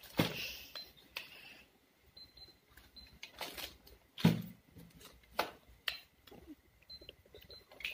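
Toy cash register playset being handled: scattered clicks and knocks of plastic buttons and items, the loudest a knock about four seconds in, with a few short, faint high beeps.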